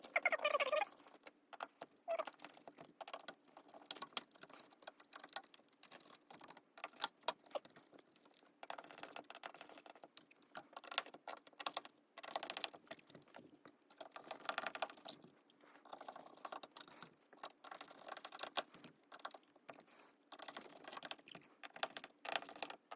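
Irregular small clicks, taps and scraping of plastic and metal as a faceplate mounting bracket is fitted and screwed onto wall switches.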